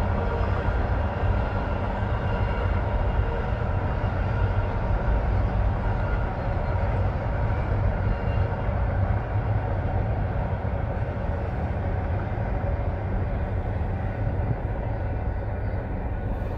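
Double-stack intermodal container cars rolling past on the rails, a steady rumble of wheels and trucks. It thins out near the end as the last car goes by.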